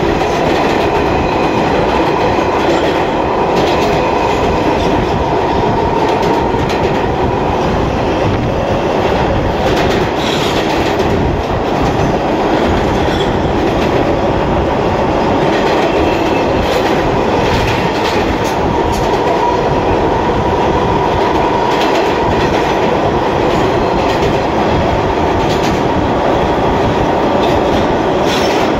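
Ride noise inside an R160A subway car running at speed: a steady loud rumble of steel wheels on rails, a constant hum near 1 kHz, and irregular clicks over the rail joints.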